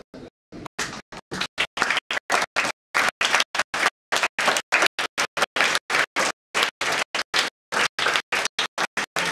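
Audience of schoolchildren applauding. The clapping is chopped into short snatches, about five a second, with dead silences between them, as if the recording keeps dropping out.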